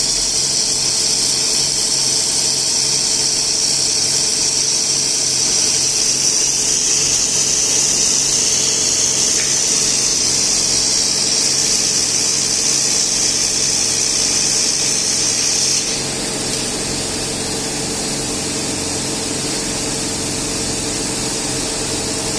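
A 3000 W robot-arm laser welding machine running: a steady high hiss over a constant machine hum. About sixteen seconds in, the hiss stops and the hum carries on alone.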